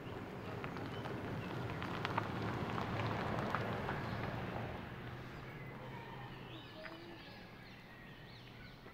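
A rushing noise with small clicks swells and fades over a few seconds over a low steady hum, and birds chirp in the second half.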